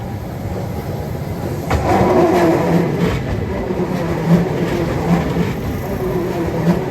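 A train running past close by, suddenly much louder about two seconds in, with regular thumps of the wheels over the rail joints.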